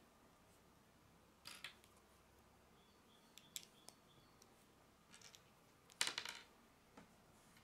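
Small plastic Lego pieces being handled and pressed together, giving a scatter of short sharp clicks with the loudest cluster about six seconds in.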